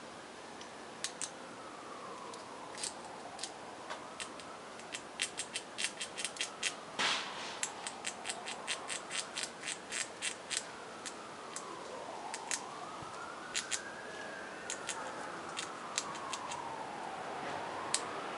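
Eastern gray squirrel chewing fruit: crisp clicks in irregular runs, thickest in the middle and loudest about seven seconds in. A fainter tone slowly glides up and down in pitch underneath.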